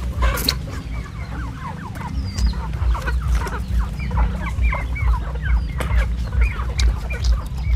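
Free-ranging domestic chickens clucking, many short calls overlapping several times a second. A low, regular pulsing runs beneath, about three pulses a second.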